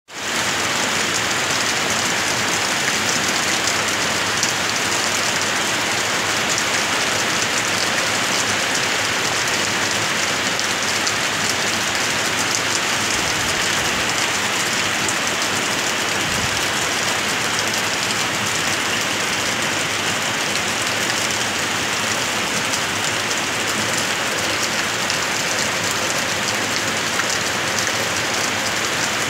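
Steady rain falling on leaves and wet paving, an even, unbroken hiss of drops.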